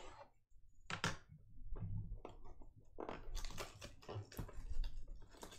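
Plastic shrink wrap crinkling and crackling as it is slit and torn off a cardboard trading-card blaster box, in a quick run of short crackles.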